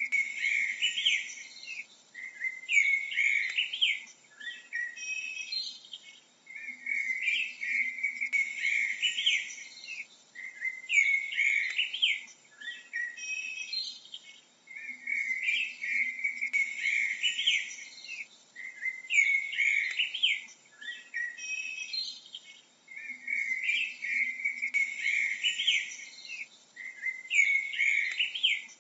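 A male Eurasian blackbird singing short warbled phrases with brief pauses between them, repeated about every four seconds.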